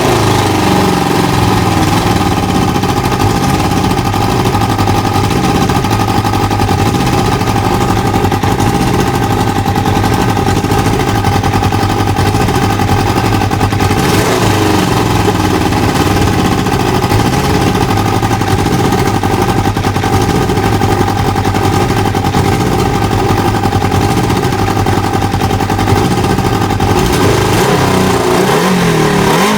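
Kawasaki ZL600 Eliminator's inline-four engine running at a steady idle just after starting, on freshly refitted carburettor diaphragms. Its pitch shifts briefly about halfway through and again near the end.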